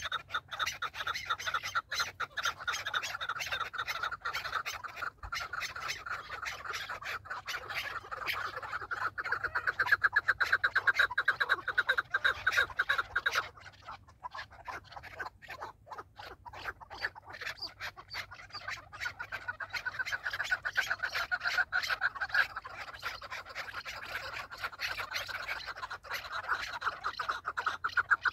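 Chukar partridges calling: a long run of rapid, even clucking notes. It swells louder about ten seconds in, dips briefly, and builds again toward the end.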